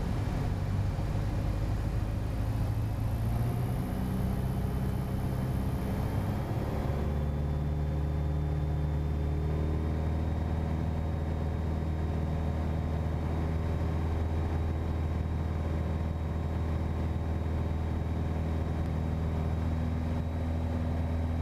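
Piper PA-28's piston engine and propeller droning steadily, heard inside the cockpit in flight. The engine note rises between about four and seven seconds in, then holds steady.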